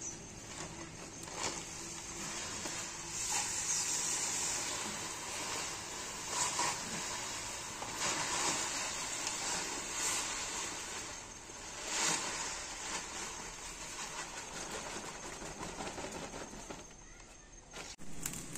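Paddy grain pouring from a woven plastic sack into a large aluminium pot of hot water for parboiling: a rushing hiss that comes in surges as the sack is tipped, with the sack rustling. It eases off near the end.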